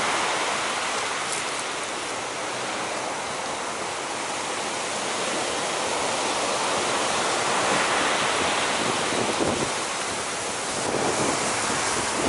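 Big surf breaking, a steady rush of waves and whitewater that swells and eases, with wind noise on the microphone.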